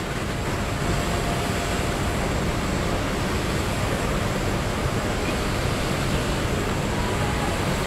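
Steady outdoor rumble and hiss with no distinct events.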